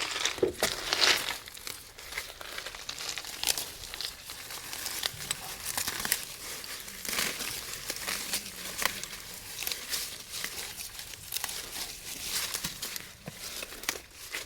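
Leaves and stems rustling and crackling without a break, with irregular snaps and tears, as overgrown brush and weeds are pulled and cut back.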